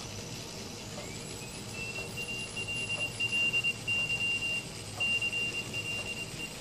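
A Morse code (CW) signal picked up by a Sudden Storm II receiver over band hiss: a single high beep that glides up in pitch as the tuning knob is turned, then holds a steady note broken on and off into dashes.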